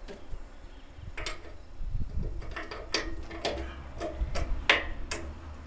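A string of light metallic clicks and clinks, about nine over four seconds, as bolts are fitted through the mounting brackets of an original Ferguson roll bar on a TE20 tractor.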